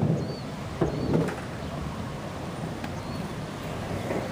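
Small urethane wheels of a RipStick caster board rolling across a half-pipe ramp, a steady low rumble, with a couple of knocks about a second in as the board moves over the surface.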